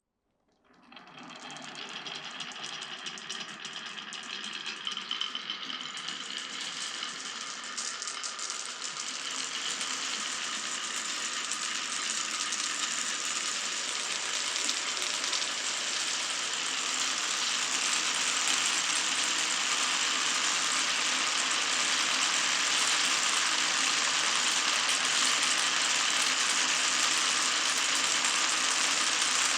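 Many marbles rolling and clattering together along a wooden marble run, a continuous dense rattle that starts about a second in and grows gradually louder before holding steady.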